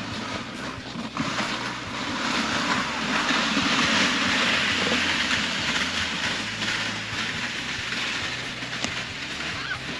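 Wind rushing over the microphone, swelling over the first few seconds and then easing, with a low steady hum underneath.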